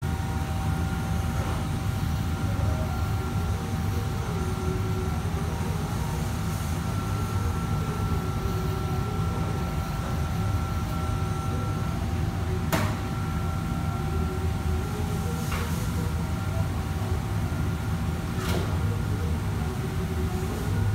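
Steady low rumble of a commercial kitchen's gas wok range and extractor hood, with a steady whine over it. A few sharp metal clanks of utensils on woks cut through, the sharpest about halfway through.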